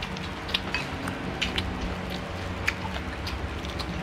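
Chewing and small mouth and tableware sounds while eating, close to the microphone: scattered short clicks, about ten in four seconds, over a low steady hum.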